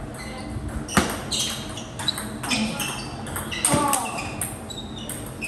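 Table tennis ball clicking off bats and table, with two sharper knocks about a second in and near four seconds, over a murmur of voices.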